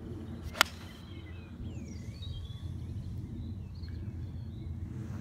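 A 5-iron striking a golf ball off the tee: one sharp click about half a second in. Faint birdsong chirps and a steady low outdoor noise follow.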